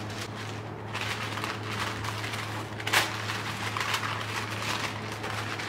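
Parchment paper rustling and crinkling as it is pulled from the roll and folded around pieces of raw beef, with one sharp crackle of paper about three seconds in.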